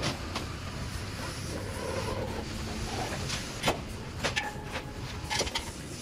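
Car lifting gear being worked: a few sharp metal clanks and knocks, most of them in the second half, over steady background noise.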